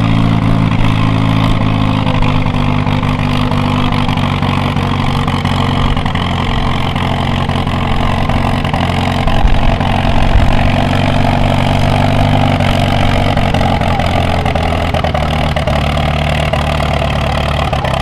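Vintage Farmall tractor's engine running at steady revs under heavy load as it pulls a weight-transfer sled, growing briefly louder around the middle.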